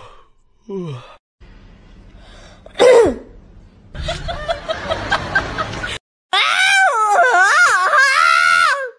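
A string of cat calls from separate clips: a short falling moan at the start, one loud falling meow about three seconds in, and near the end a long, wavering yowl.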